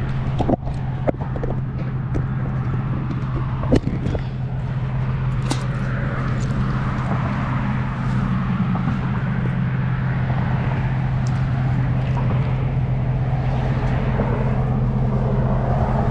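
Truck engine running steadily with a low, even hum, with a few sharp clicks and knocks in the first few seconds.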